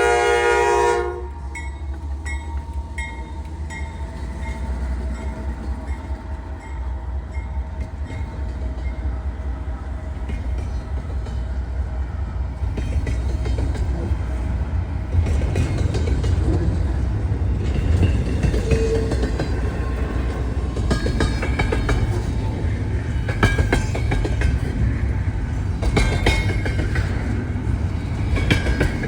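A diesel locomotive's horn chord cuts off about a second in. Then a long freight train rolls through the grade crossing, its wheels rumbling and clacking over the rail joints and growing louder, with a crossing bell dinging steadily.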